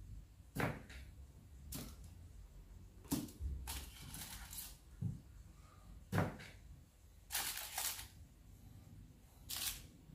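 Small kitchen knife cutting cherry tomatoes on a wooden cutting board: about eight irregular, sharp taps as the blade goes through and meets the board, a few of them drawn out into short scraping strokes.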